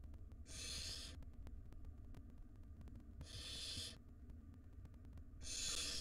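Barn owl nestlings giving their hissing 'snore' food-begging call: three drawn-out rasping hisses, each under a second, about two and a half seconds apart, over a low steady hum.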